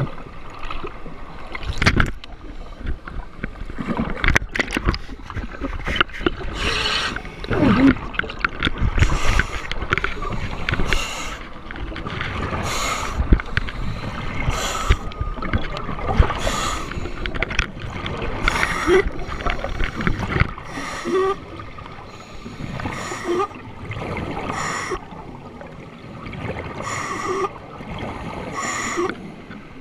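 Scuba diver breathing through a regulator, heard underwater through a GoPro housing: a hissing inhale and a gurgling rush of exhaust bubbles repeat every second or two. In the first seconds there are a few sharp knocks and rumbling from the camera housing moving through the water.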